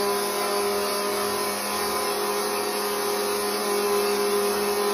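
Countertop blender with a glass jar running steadily, its motor humming evenly as it churns a soapy liquid into froth.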